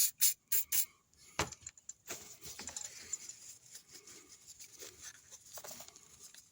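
Four or five short hissing bursts in the first second, then a sharp click, then a few seconds of light rustling and scraping as small motorcycle parts and tools are handled during an oil change.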